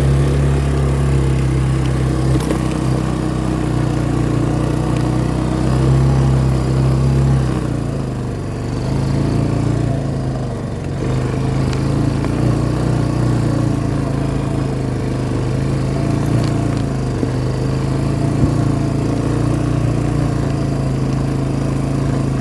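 Vehicle engine running steadily under way, its deepest drone easing and its pitch shifting about seven and a half seconds in.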